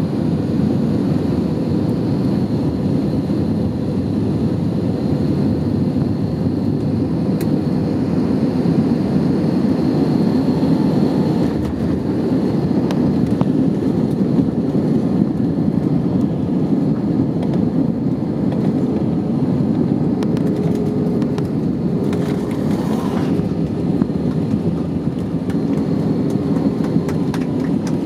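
Steady rumble of an Airbus A320 rolling on the ground, heard inside the cabin: engine noise and landing-gear rumble with a faint high whine. Fast rattling clicks build up near the end.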